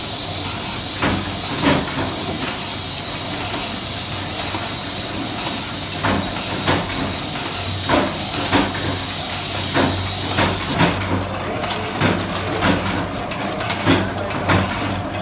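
Belt-driven roller machine for lamp-holder shells running steadily with a low hum and a hiss, while small metal shells clink in its feed hopper. The clinks come a few at a time at first, then grow busier and more frequent in the last few seconds.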